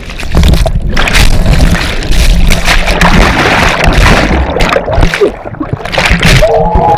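Water rushing and bubbling loudly around a GoPro as it plunges under the sea with a jumper from a boat, starting about half a second in. Near the end a drawn-out tone sounds through the churning.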